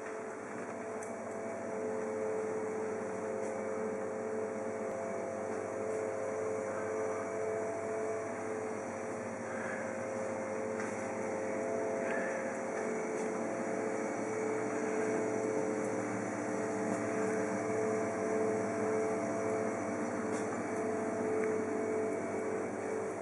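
Steady machine hum, several held tones over a soft hiss, with a few faint clicks.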